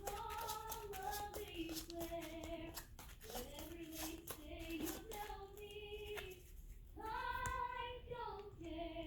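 A child's voice singing quietly to itself in short phrases of held, sliding notes, with scattered light clicks alongside.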